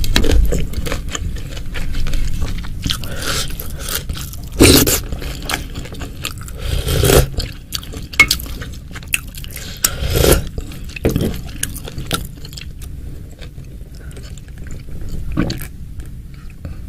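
Close-miked eating sounds of spicy meatballs and beef ribs: wet chewing and biting with many irregular small clicks, and a few louder short bursts spread through.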